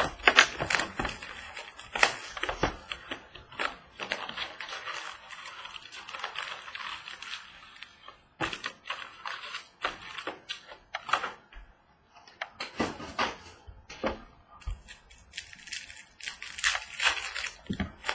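Cardboard box of baseball card packs being opened and its foil-wrapped packs pulled out and handled: irregular crinkling and rustling of wrappers with sharp taps and scrapes of cardboard on the tabletop.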